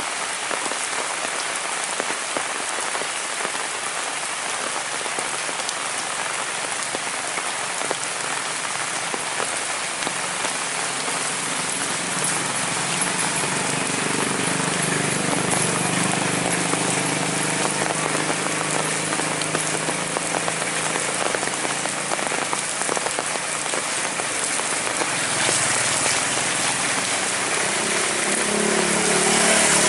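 Heavy rain pouring steadily, a dense hiss of drops on roofs and ground. A faint low hum, like an engine, rises under it from about halfway through and again near the end.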